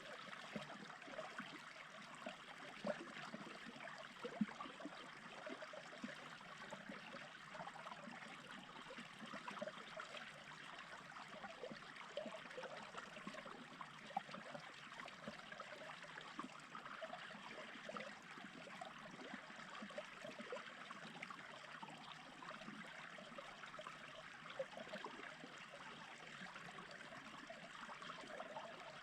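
Small stream babbling and trickling over stones, a soft, steady burble with occasional slightly louder plips.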